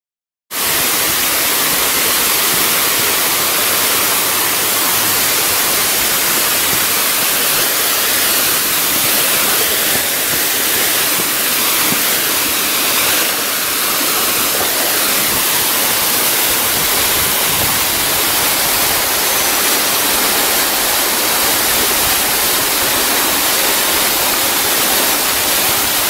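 Waterfall rushing steadily as water gushes down rocky cascades, an even roar of water with no break. It starts about half a second in.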